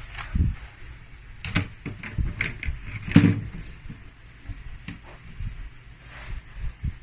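Irregular clicks and knocks of hands handling a laptop's plastic case and internal parts, the loudest knock about three seconds in.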